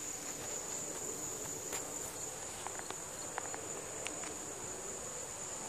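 Crickets trilling steadily at a high pitch, with a few faint clicks from the camera being handled.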